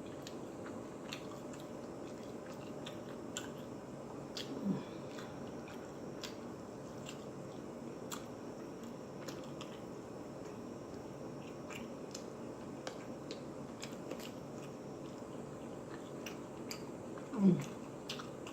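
Close-up chewing and biting with wet mouth clicks, as a person eats. Twice, about five seconds in and near the end, a short vocal sound falling in pitch; the second is the louder.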